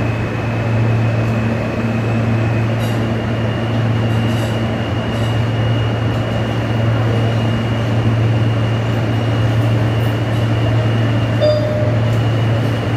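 New York City subway train running, with a steady low rumble and rail noise and a thin steady high whine that steps up slightly in pitch about three seconds in.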